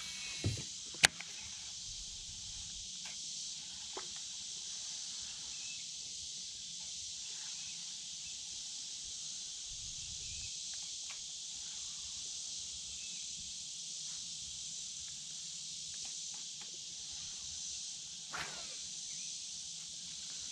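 Steady high-pitched chorus of insects, with one sharp click about a second in and a few faint ticks later.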